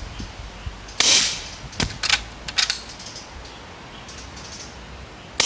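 Skout Epoch .25 PCP air rifle firing: a sharp crack about a second in, a few short clicks of the action being worked for the next pellet, then a second shot right at the end.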